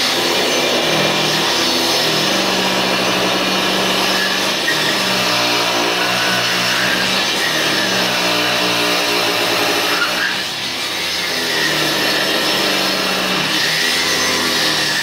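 Electric angle grinder with a diamond blade grinding thinset off the floor, running steadily under load, its pitch shifting as it is worked, with a brief easing about ten seconds in.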